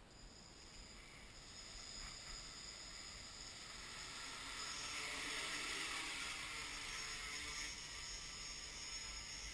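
Small electric quadcopter's four brushless motors and propellers spinning up from rest and taking off: a high whine that starts just after the beginning, grows louder over the first five seconds and then holds steady in a hover.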